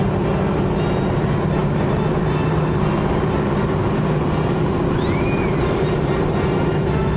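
T-6 Texan's Pratt & Whitney R-1340 radial engine running steadily, heard from inside the cockpit. A brief high tone rises and falls about five seconds in.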